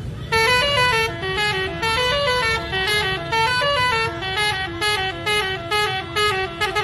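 Indonesian bus 'basuri' telolet musical horn playing a quick melody of short notes that step up and down, over a low rumble.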